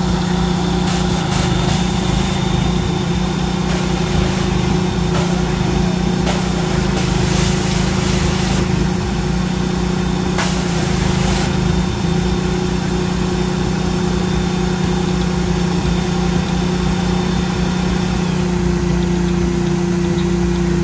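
Small gasoline engine of a trailer-mounted pressure washer running at a steady speed, with several short hissing bursts of spray in the first half. The engine note changes slightly near the end.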